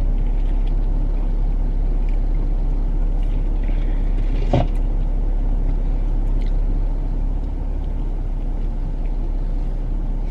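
Steady low rumble of a car idling, heard from inside the parked car's cabin, with faint small clicks and one brief louder sound about halfway through.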